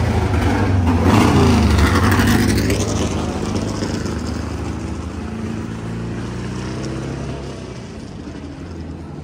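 A vehicle engine running, loudest in the first three seconds and then fading steadily.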